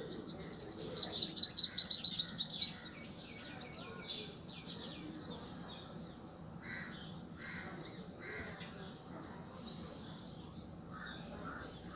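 Birds chirping: a fast run of high, repeated chirps in the first few seconds, then quieter scattered bird calls.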